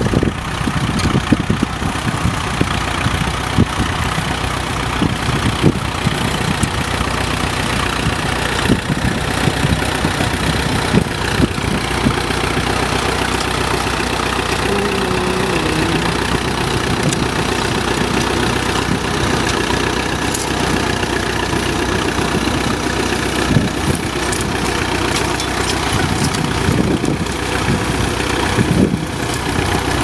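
Fordson Model N tractor's four-cylinder engine running steadily under load while pulling a trailed plough.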